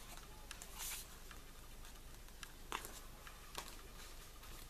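Faint rustling of a paper vinyl single sleeve being turned over and laid down, with a few soft taps.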